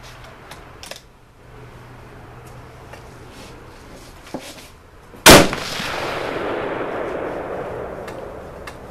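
A single shot from a Ruger American bolt-action rifle in .308 Winchester, a little past five seconds in, followed by a long echo that dies away over about three seconds.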